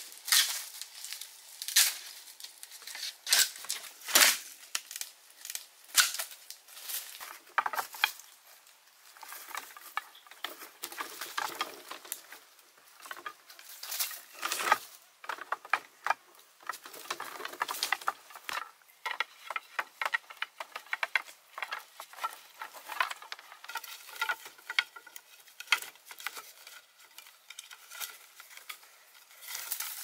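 Bamboo poles knocking and clacking against each other as they are handled, sharp hollow knocks about a second apart. Later comes a denser run of small clicks, taps and scraping as a thin vine lashing is pulled tight around bamboo poles laid side by side into a floor.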